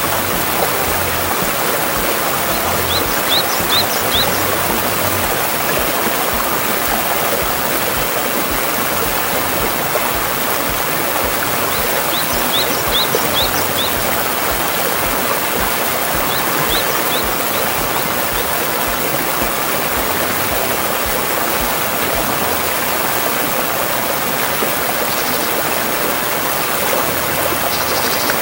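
Mountain stream rushing steadily over rocks. A small bird calls three times over it, each a quick run of about four short, high rising chirps.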